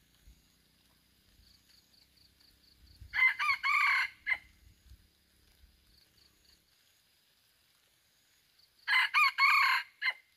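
Red junglefowl rooster crowing twice, each crow about a second long and broken into several notes, the second crow about six seconds after the first.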